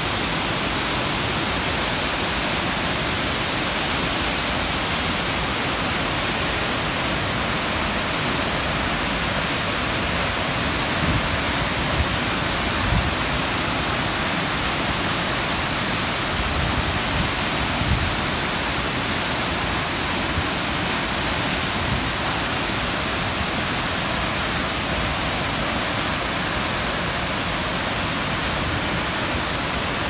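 Large waterfall crashing onto rocks close by, a loud, steady rushing noise, with a few brief low bumps around the middle.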